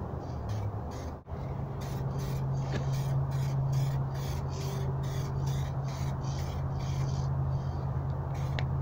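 Crows cawing over and over, about two to three caws a second, over a steady low hum.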